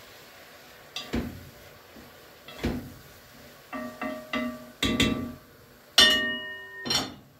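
Metal kitchenware clinking and knocking: about eight separate knocks, several leaving a short ringing tone, the loudest and longest-ringing one about six seconds in.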